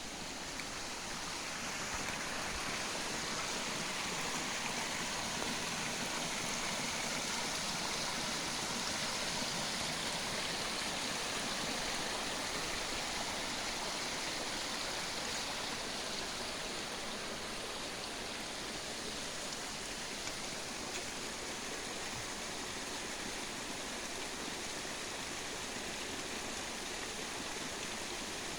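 Flowing water rushing steadily, an even, unbroken hiss with no change throughout.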